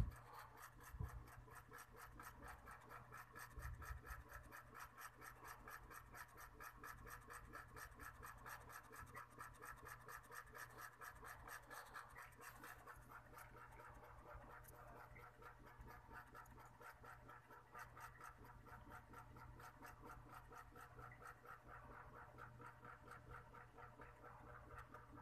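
Near silence: faint room tone with a soft, fast, evenly repeating rasp in the background and a couple of faint low thumps near the start.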